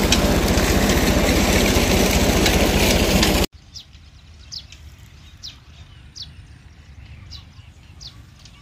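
Ford tractor engine running a tubewell pump, with water gushing from the outlet pipe. The sound cuts off abruptly after about three and a half seconds. Then, much quieter, a bird repeats a short falling chirp about once a second.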